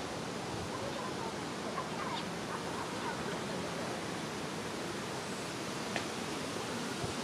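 Steady outdoor background hiss, even like wind or distant water, with a few faint short chirps about one to two seconds in and a single light click about six seconds in.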